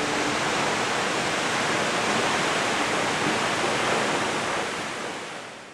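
Waterfall rushing steadily, an even wash of falling-water noise, fading out near the end. The last held note of an acoustic guitar song dies away just at the start.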